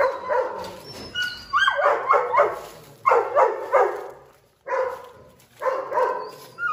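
Dogs barking and yipping in short repeated bursts, several volleys with brief pauses between them.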